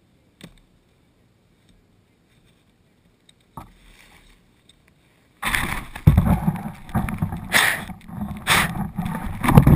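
Near silence with a faint click, then about five seconds in, loud rubbing and bumping on a GoPro Hero2 action camera as it is handled and its fogged housing is wiped clear.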